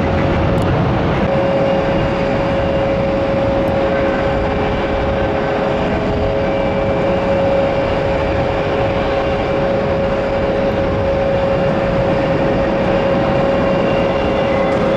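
Jet engines of a Bombardier CRJ-200 at take-off: a loud, steady roar with a steady whine held through it.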